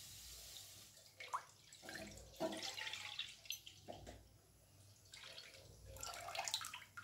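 Thick cow's colostrum milk poured from a pot into a stainless steel kadhai, splashing and dripping faintly in a few spurts, with a last thin trickle near the end.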